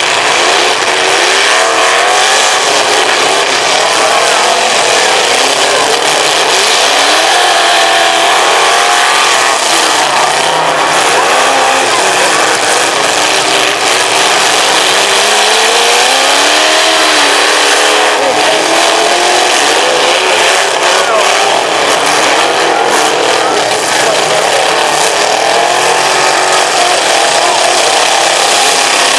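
Several demolition-derby cars' engines revving and running at once, their pitches rising and falling over one another without a break.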